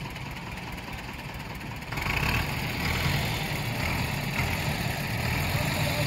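Sawmill machinery running: a steady engine drone that grows louder about two seconds in.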